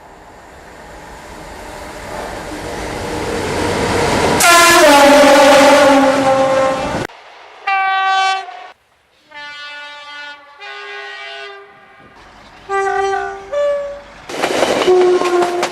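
A series of British train horns, clip after clip. First a train rushes up with a building roar and sounds a loud two-tone horn whose pitch sags slightly as it passes, then cuts off. About five shorter horn blasts from other locomotives and multiple units follow, each starting and stopping abruptly, and near the end another passing train sounds its horn.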